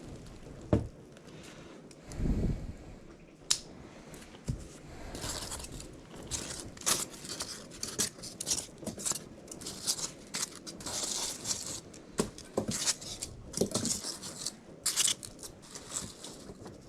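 Packaging being handled and pulled open while a furnace kit is unpacked: repeated rustling, scraping and tearing noises, with a couple of knocks in the first few seconds.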